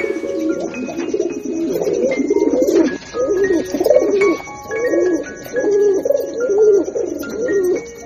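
A flock of feral pigeons cooing, many coos overlapping one another in a steady stream, with light music underneath.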